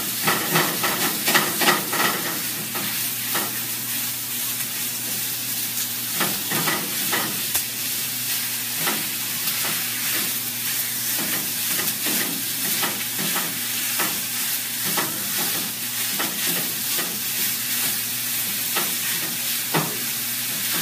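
Sausage with onions and garlic sizzling in a frying pan on a gas stove, while a wooden spatula scrapes and taps against the pan, breaking up the meat. The strokes come irregularly over a steady sizzle.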